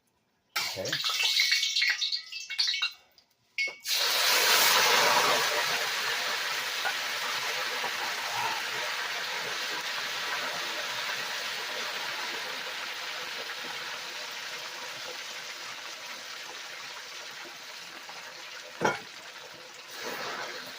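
Marinated pork slices going into hot oil: a few utensil clatters, then a loud sizzle starts suddenly about four seconds in and slowly fades as the pan settles. A single click sounds near the end.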